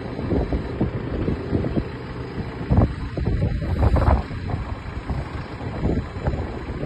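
Engine of a JCB machine running steadily, with wind buffeting the microphone in irregular gusts.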